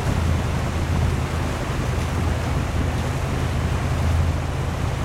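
Steady low rumble and hiss of wind buffeting the microphone over open water, with no distinct splashes or strokes standing out.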